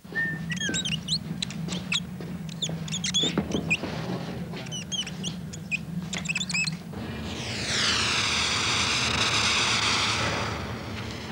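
A run of quick, squeaky chirps over a steady low hum. About seven seconds in, the hiss of a handheld smoke machine spraying thick fog rises and becomes the loudest sound, with a sweeping, phasing quality.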